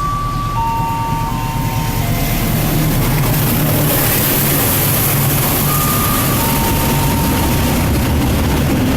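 A train passing through the station: a rumble and hiss that grow louder over the first few seconds, then hold steady and loud. The last few held notes of a chime melody fade out in the first two seconds.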